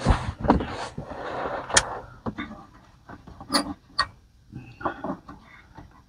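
Hands rustling with a cardboard box and circuit cards, then three sharp clicks, the last two close together in the middle, and a few lighter knocks as expansion cards are handled and seated in the Apple II Plus motherboard's slots.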